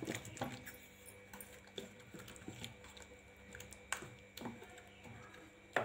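Wooden ravi hand churner spun back and forth in a steel pot of mango pulp, its head knocking faintly against the metal in irregular clicks.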